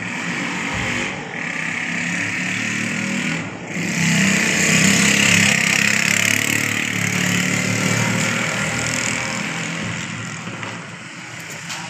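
A motor running steadily; it grows louder about four seconds in and eases off again near the end.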